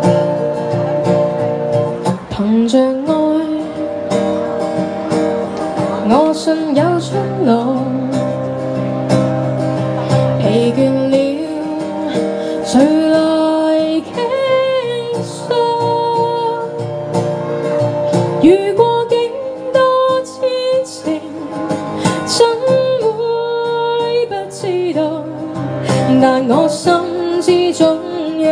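A woman singing a slow song live, accompanying herself on acoustic guitar.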